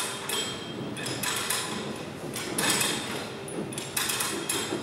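Knocks and crinkling scrapes from work on a Strv 103C's folding flotation screen, a handful of separate short bursts about a second apart.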